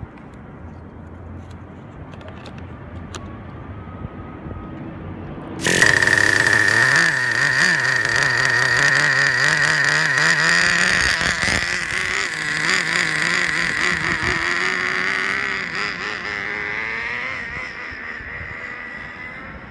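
Small nitro glow engine of a Traxxas Nitro 4-Tec RC car screaming at high revs during a three-quarter-throttle speed run. Faint at first, it turns suddenly loud about six seconds in as the car comes close, holds a high-pitched whine for about ten seconds, then fades near the end.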